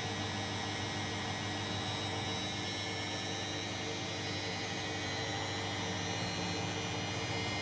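Front-loading washing machine on its spin cycle: the motor and drum running with a steady hum and whine.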